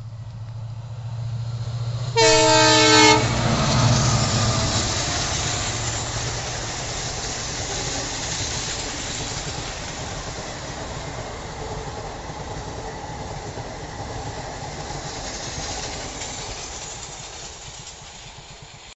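WDP4D diesel locomotive, with its EMD 16-cylinder two-stroke engine, humming low and steady as it approaches, then sounding its horn once for about a second, a couple of seconds in. The train then runs past, its coach wheels clattering over the rail joints, the noise slowly fading as it recedes.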